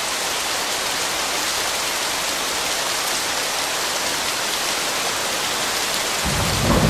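Heavy rain falling steadily, a dense even hiss. A low rumble comes in near the end.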